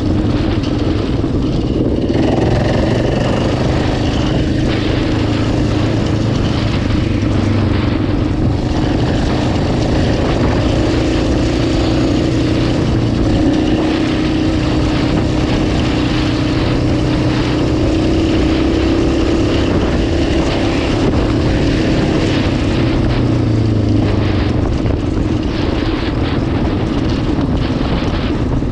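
ATV engine running at a steady, even speed while riding, over rushing wind and terrain noise, with no big revs or drops.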